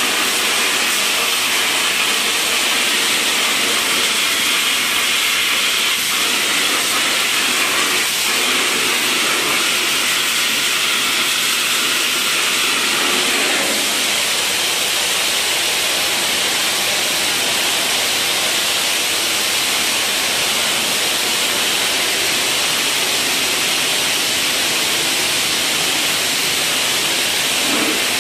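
High-pressure water jetter lance blasting water across a concrete floor and steel channel drain grates: a loud, steady hiss of spray.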